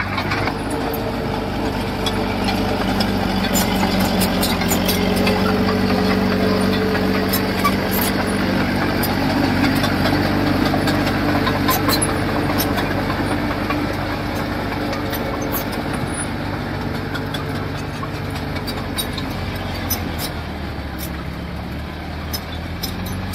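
Diesel engine of a heavy construction machine running steadily, louder in the first half and easing off toward the end, with scattered small clicks and knocks over it.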